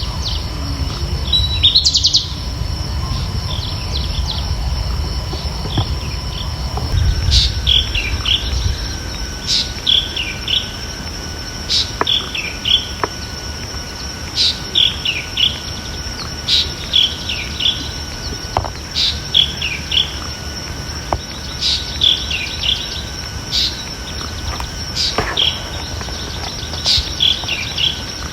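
Birdsong ambience: a bird repeats a short chirping phrase about every two seconds, over a steady high-pitched drone and a low rumble. A single rising chirp comes about two seconds in.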